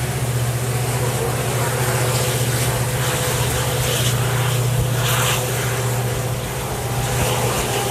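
WDP4 diesel locomotive's EMD two-stroke V16 engine droning steadily under load as the train gathers speed, mixed with the rumble of wheels on rails and rushing wind.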